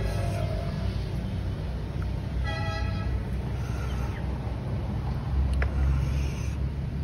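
Steady low rumble of a motor vehicle engine, with one short horn toot about two and a half seconds in; the rumble grows louder in the last couple of seconds.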